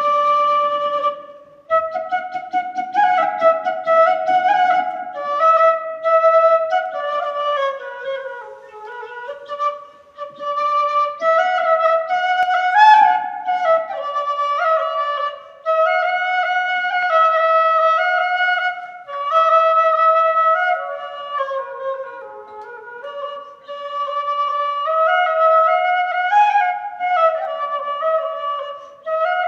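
Music: a single wind instrument playing a flowing melody, one note at a time, in phrases with short breaks between them.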